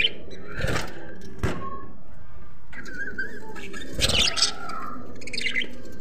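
A flock of caged budgerigars chirping and warbling in short scattered bursts, with a few short knocks among them.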